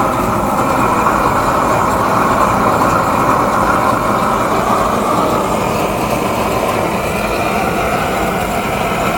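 A 500,000 BTU propane weed-burner torch blasting into a fire-brick forge, burning with a loud, steady rush of flame.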